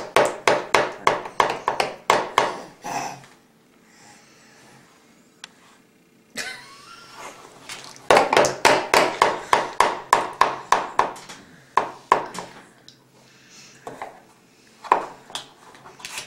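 A toddler banging on a plastic high-chair tray in quick runs of taps, about four strikes a second, with a pause and a short babble between the runs.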